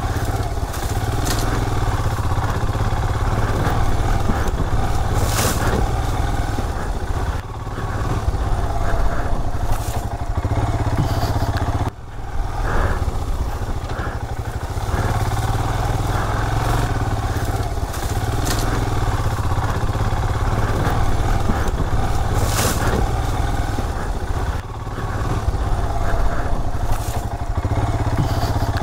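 Royal Enfield Himalayan's single-cylinder engine running as the motorcycle rides a rough dirt trail, with a few sharp knocks and clatter from the ground. The sound dips briefly three times.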